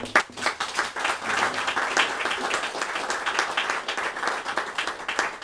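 Audience applauding, a dense patter of many hands clapping.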